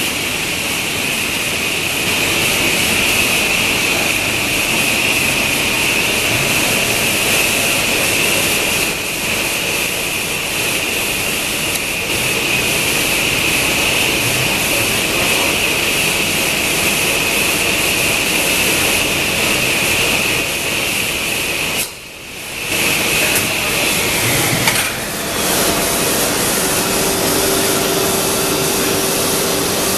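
WEEKE CNC woodworking machining center running, its router spindle giving a steady high whine over a loud, even rush of air. The level dips briefly about two-thirds of the way in, and the whine stops a few seconds later while the rushing noise carries on.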